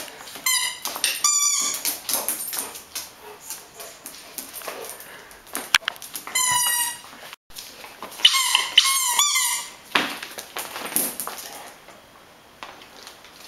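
A Great Swiss Mountain Dog playing with a toy on a tile floor: four short groups of high-pitched squeals that bend in pitch, the last two close together near the end, among scattered taps and knocks.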